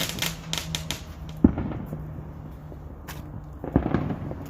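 Mortar fireworks going off: a run of rapid crackling pops, then one sharp bang about a second and a half in, and a fainter bang near the end.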